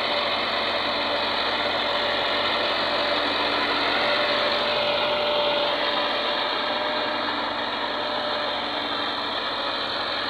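Massey Ferguson 385 tractor's four-cylinder diesel engine running steadily while it pulls a laser land-leveller scraper across ploughed soil.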